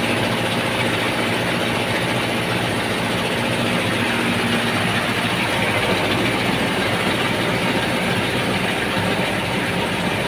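Small rice mill running steadily while milling rice, its drive humming with several steady tones under a constant grainy hiss of grain moving through the machine. It is a test run of the mill after its rubber roll was adjusted.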